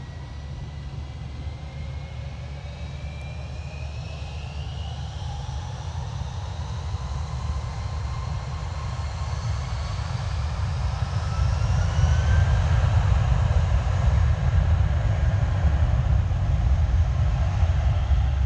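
Airbus A320's jet engines spooling up to takeoff power: rising whines over a deep rumble that grows steadily louder, reaching full power about twelve seconds in.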